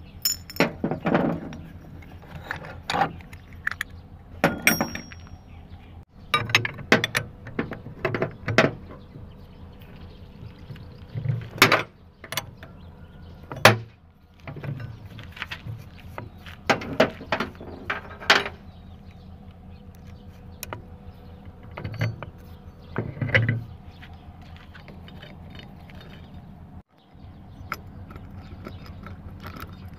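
Metal tools and scooter engine parts clinking and clanking in irregular knocks, with a spanner and holding bar worked on the Honda Dio's clutch bell and variator. One knock about five seconds in leaves a short, high metallic ring.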